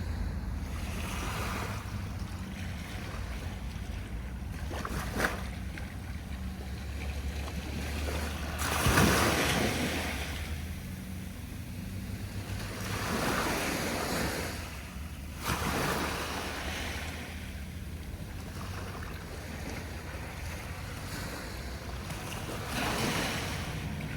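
Sea waves breaking on the shore, each one washing in as a swell of noise every few seconds, the loudest about nine seconds in. A low wind rumble on the microphone runs underneath.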